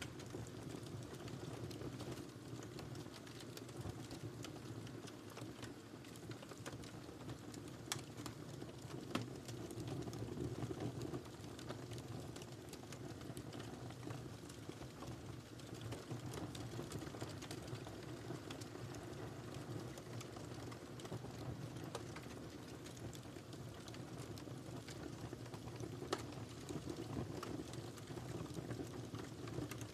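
Wood fire burning in a fireplace: a steady low rumble of flames with frequent small crackles and pops, a couple of louder pops about eight and nine seconds in.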